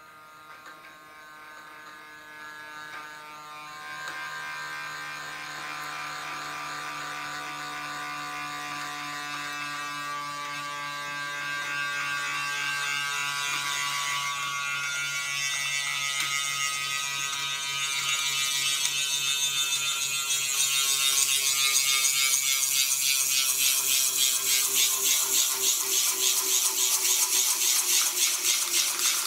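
A home-made metal spinning top running on a glass mirror. It starts as a faint, steady hum, grows steadily louder, and from about two-thirds of the way in turns into a loud, fast, rattling buzz as it chatters against the glass.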